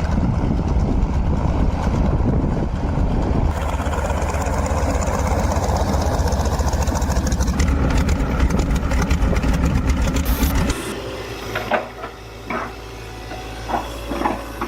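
A vehicle's engine running loudly and steadily. About eleven seconds in it cuts off abruptly to a quieter low hum with a few scattered knocks and scrapes.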